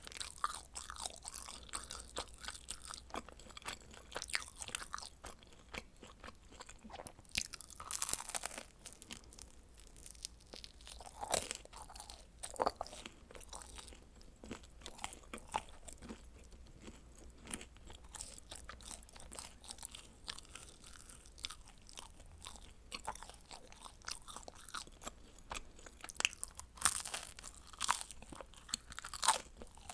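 Close-miked eating: a person biting and chewing pizza, with irregular crunches and crackles from the crust and a few louder bites.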